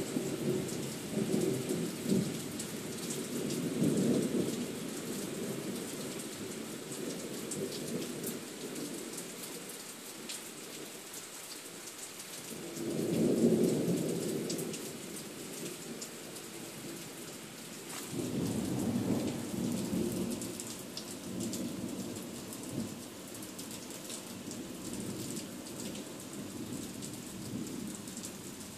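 Thunderstorm: steady rain hissing, with rolling rumbles of thunder, the loudest about halfway through and another a few seconds later.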